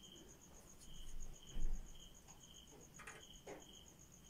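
Crickets chirping steadily: one sings a fast, even train of high pulses, another a lower chirp about twice a second. Over them come soft clothing rustles and a dull knock about one and a half seconds in.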